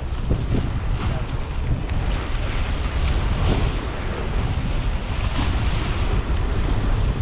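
Wind buffeting the microphone in a heavy, gusting rumble, with sea waves washing behind it.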